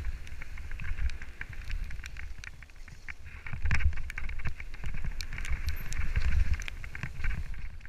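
Mountain bike descending a loose gravel dirt trail, heard from a helmet-mounted camera: wind rumble on the microphone, with the tyres crunching over stones and the bike rattling and clicking over the bumps. The rumble swells about halfway through as speed picks up.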